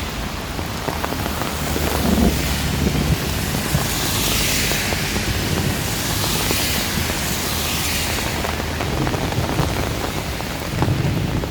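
Heavy rain pouring in strong wind, a steady hiss that swells twice in the middle as gusts drive the rain, over a low rumble.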